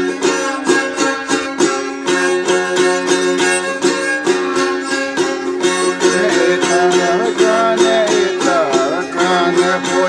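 Music led by a rapidly strummed plucked string instrument over steady held notes; a higher, wavering melody line comes in about six seconds in.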